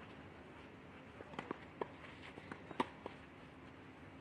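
Faint knocks of a tennis rally on a clay court: racket strikes and ball bounces a second or so apart, the sharpest near three seconds in, over a low steady background hum.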